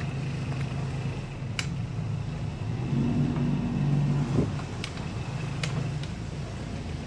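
Catamaran's diesel engines running at low throttle while manoeuvring, a steady low hum. It grows louder for about a second and a half midway, then a thump, with a few light clicks scattered through.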